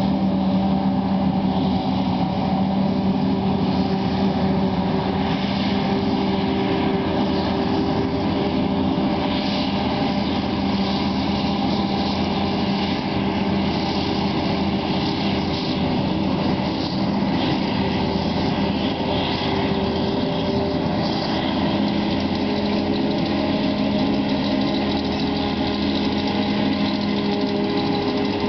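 Claas Jaguar 970 self-propelled forage harvester chopping maize under working load. Its engine and chopper make a steady, unbroken drone with a constant hum, mixed with the engine of the John Deere tractor hauling the trailer alongside.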